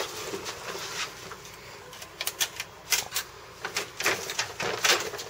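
Walking noises: irregular light clicks and knocks, a few a second, that start about two seconds in.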